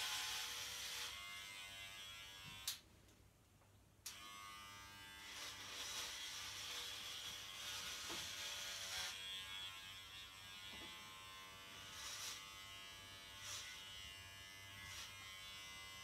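Electric hair clipper buzzing steadily as it trims hair. About three seconds in it stops with a click and starts again with another click a second or so later.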